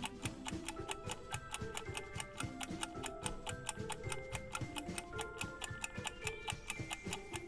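Countdown timer ticking like a clock, about four ticks a second, over soft background music with a simple melody.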